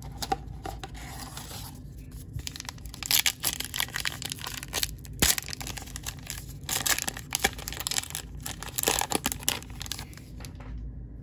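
A 2022 Topps Heritage baseball card pack wrapper being torn open and peeled apart by hand. It goes in several bursts of ripping and crinkling, with one sharp crack about five seconds in.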